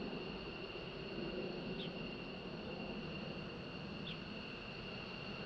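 A steady high-pitched insect buzz with a short chirp repeating about every two seconds, over the low rumble of the RC-135W's jet engines in the distance.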